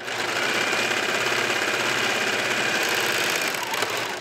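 Serger (overlock machine) running at a steady fast speed as it stitches binding onto a knit neckline, stopping abruptly near the end.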